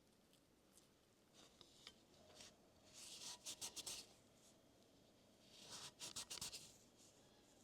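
Faint scratchy rubbing and rustling as grip material is worked onto a badminton racket handle, in two short bursts of quick strokes about three seconds apart.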